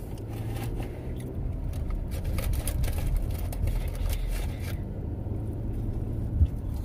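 Steady car road and engine rumble heard from inside the cabin while driving, with a run of light rustling clicks over the first few seconds and one short thump near the end.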